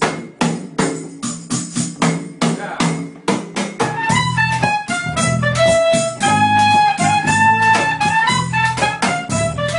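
Folk band music: a quick drum rhythm plays alone at first, and about four seconds in a melody of long held notes and a bass line join in over the drumming.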